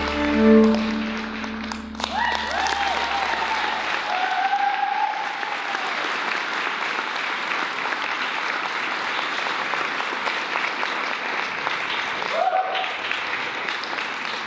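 An audience applauding and cheering, with voices calling out now and then. The closing notes of the performance music stop about two seconds in.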